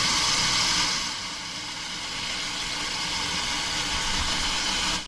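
Tap water pouring in a steady stream into a stainless steel pot standing in a stainless steel sink. It gets a little quieter about a second in, then cuts off abruptly at the end.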